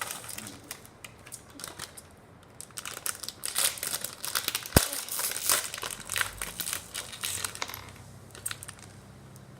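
Plastic blind bag crinkling and crackling as it is handled and opened, with a dense patch of crackles in the middle and one sharp snap about five seconds in.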